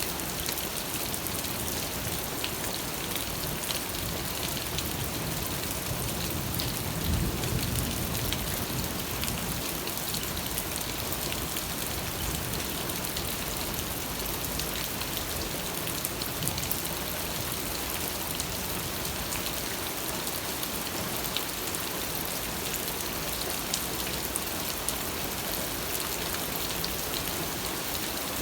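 Steady rain falling, a continuous hiss with the patter of individual drops. A brief low rumble swells about seven seconds in.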